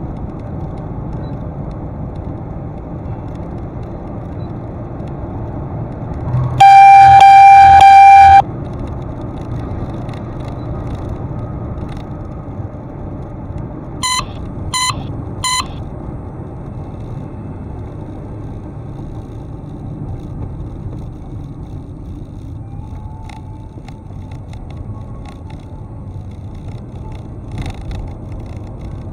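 Steady road and engine noise heard from inside a moving vehicle. About seven seconds in comes a very loud car horn blast held for nearly two seconds, then about fourteen seconds in three short horn toots in quick succession.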